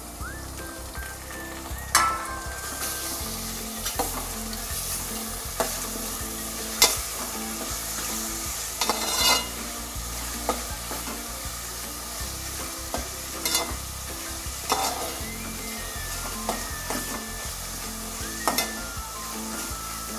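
Raw prawns sizzling in hot oil with onions in a metal pot while a metal spatula stirs them. Sharp clinks of the spatula against the pot every second or two.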